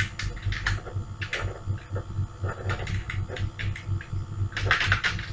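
Computer keyboard being typed on: scattered key clicks, with a quicker run of keystrokes near the end, over a low pulsing hum.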